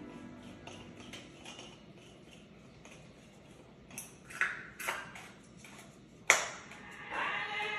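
A few light clicks and clinks, with one sharp click about six seconds in, then music begins near the end.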